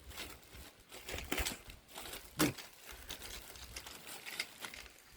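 Crinkling and rustling of packaging being handled, in irregular bursts, with one louder crackle about two and a half seconds in.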